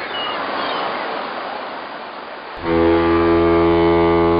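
Sea-wash noise with a few faint high cries, then about two and a half seconds in a cruise ship's horn starts: a loud, deep, steady blast.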